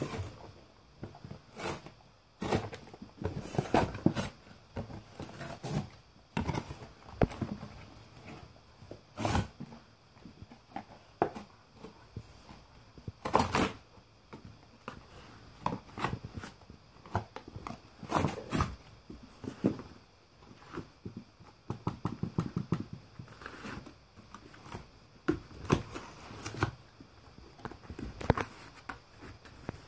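Golden retriever ripping and chewing an empty cardboard tissue box: irregular cardboard crunches, tears and rustles in quick clusters.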